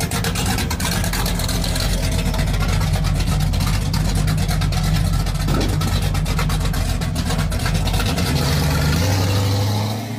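Deep, steady rumble of a car engine running, with a low, uneven pulsing; the deepest part of the rumble drops away about eight seconds in.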